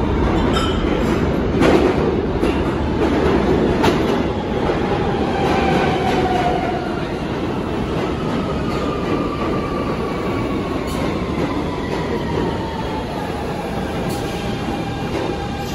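R160B subway train with Siemens propulsion pulling into the station, its wheels rumbling and clicking over the rails. Its motor whine falls slowly in pitch as it slows to a stop.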